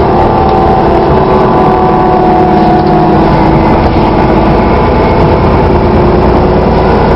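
Dennis Trident double-decker bus running, with a steady whine over the engine noise that dips slightly in pitch and rises again near the end: the strange sound this bus makes.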